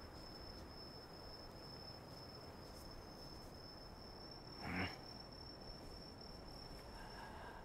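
Faint, steady, high-pitched insect trill, with one brief soft sound a little before five seconds in.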